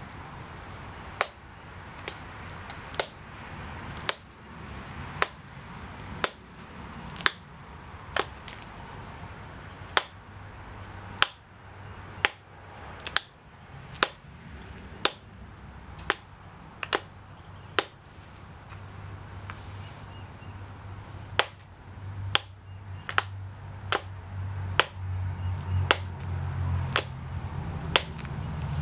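Pressure flaking a Texas tabular flint preform with a copper-tipped pressure flaker: sharp single clicks, about one a second, as small flakes pop off the edge during a finishing pass. A low hum comes in over the last several seconds.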